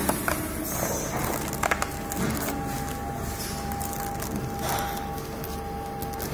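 Clear plastic food tray and its sealing film crinkling and crackling as they are handled, with a few sharp cracks in the first two seconds. Behind it runs a steady machine hum with a thin whine.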